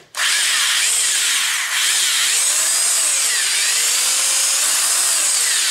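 Old electric hammer drill running free in hammer mode with a rattling hammer action, its motor speed rising and falling several times as the trigger is eased in and out.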